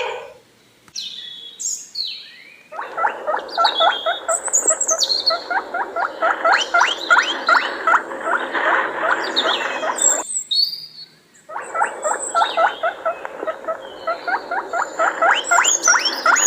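A dense chorus of rapid, high chirps and squeaks from many small animals at once, in two long stretches broken by a pause of about a second near the middle, with a few higher whistling calls over the top.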